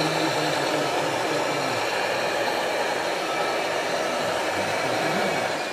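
Steady whirring hiss from a radio-controlled model heavy-haul truck and low-loader trailer driving on a track, with a faint low hum that wavers; it begins to fade out near the end.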